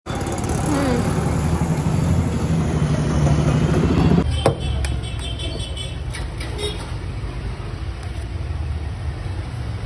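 Street noise with traffic, a steady urban hum; the sound changes abruptly about four seconds in and continues as quieter road and street noise.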